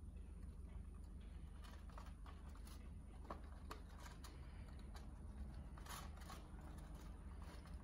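Quiet room tone: a steady low hum with scattered faint clicks and ticks.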